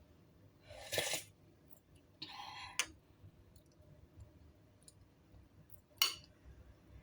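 Kitchenware being handled: a sharp knock about a second in, a short scrape ending in a click near three seconds, and another sharp knock about six seconds in.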